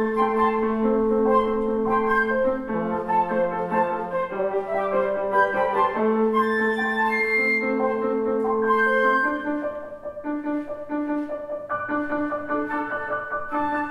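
Two flutes playing a melody over piano, with a trombone holding long low notes beneath. About two thirds of the way through the trombone drops out, leaving the flutes and piano.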